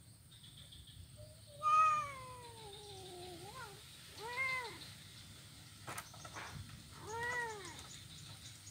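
Kittens meowing: one long meow falling in pitch about two seconds in, then two shorter meows that rise and fall, with a single sharp click between them.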